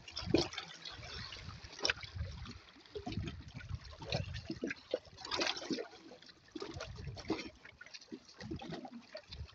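Small lake waves lapping and splashing against the shoreline rocks, in irregular, uneven splashes.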